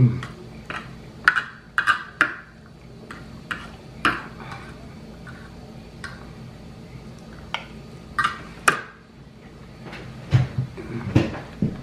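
Close-up mukbang eating sounds: chewing and lip-smacking on a mouthful of rice and chicken, heard as a string of short, sharp smacks and clicks, with a fork clinking against a ceramic plate.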